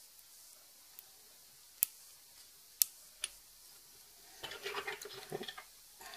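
A few sharp small clicks, then about a second of fly-tying scissors snipping and rustling as the excess chenille is trimmed at the vise.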